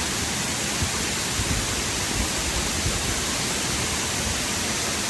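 Steady rushing noise of the Lulumahu Falls waterfall, with an uneven low rumble beneath it.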